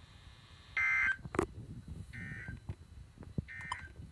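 Three short electronic beeps about a second apart, the first the loudest, with a few light knocks between them.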